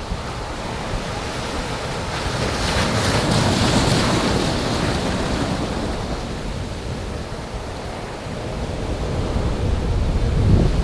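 Rough sea: waves surging and breaking, with wind blowing and rumbling on the microphone. A wave builds and breaks about three to four seconds in, the wash eases, and another swell rises near the end.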